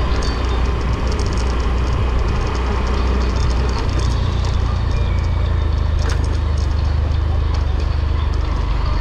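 Steady low rumble and road noise of a vehicle on the move, with scattered light rattling clicks over it; the low hum grows steadier about four seconds in.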